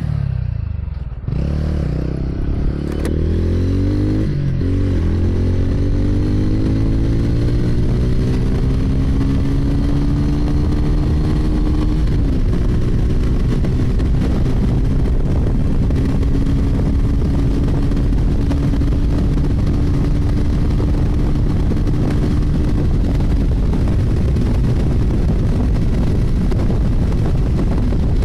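TVS Ronin's 225 cc single-cylinder engine pulled hard through the gears in urban mode, its pitch climbing with gear changes about four and twelve seconds in. It then holds high near its top end, around 120, where its power falls off, and eases off about five seconds before the end. Wind rushes over the microphone throughout.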